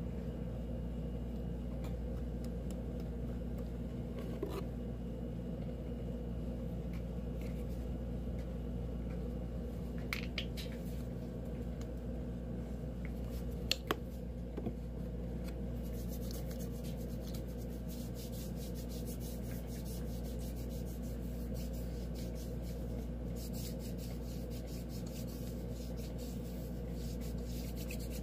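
Comb rasping through long hair in quick repeated strokes, over a steady low hum.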